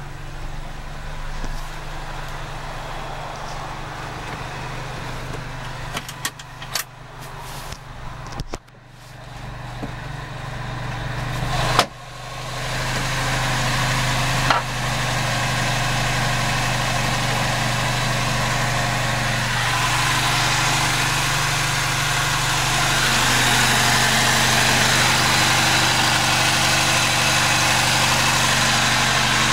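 Daihatsu Hijet truck's 547 cc engine idling steadily, with a few sharp clicks and knocks between about six and fifteen seconds in. The idle grows louder from about twelve seconds in and again near the end.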